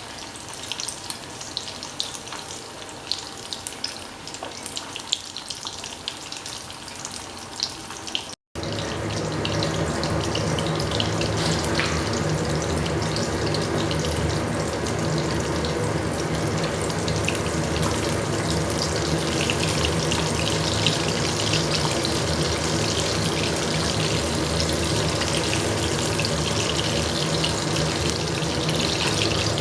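Basa fish pieces deep-frying in hot mustard oil: a steady sizzle full of small crackles. After a break about eight seconds in, the sizzle is louder and sits over a low steady hum.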